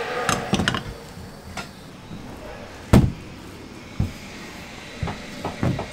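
Dull thumps of hands and dough striking a stainless-steel worktable as a dough log is rolled and pressed, the loudest about three seconds in, with several quicker ones near the end.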